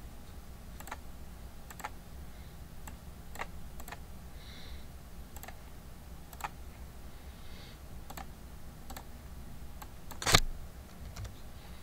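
Scattered computer mouse and keyboard clicks, roughly one a second, over a low steady hum, with one louder click about ten seconds in.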